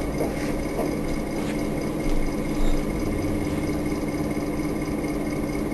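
Steady machine-like hum with a constant faint high whine, broken by a few faint ticks.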